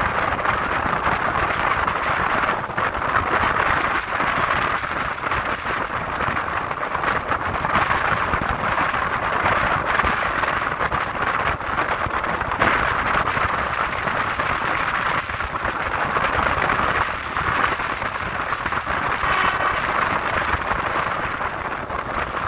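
Steady running noise of a moving passenger train heard at an open carriage window: wheels rumbling on the rails mixed with wind rushing past.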